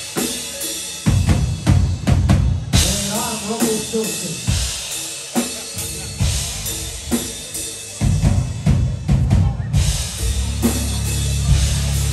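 Live rock drum kit played hard: kick, snare and crashing cymbals in loud fills. The band's bass comes in with a sustained low note about ten seconds in.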